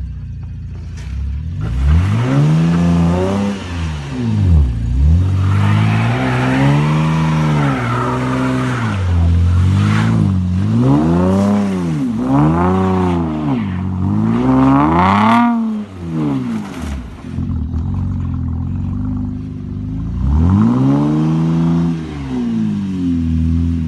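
2014 Chevrolet Camaro RS engine revved over and over, the pitch climbing and dropping back in about ten quick revs. It settles to a steady idle for a few seconds past the middle, then revs again near the end.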